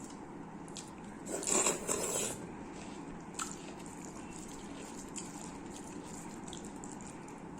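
Close-miked eating sounds of a person eating biryani: wet chewing and mouth sounds, with one louder, noisy, crunchy-sounding burst lasting about a second, starting a little over a second in, and a few small clicks.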